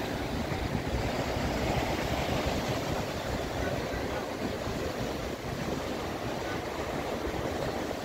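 Steady wash of a choppy sea, with wind rumbling on the microphone.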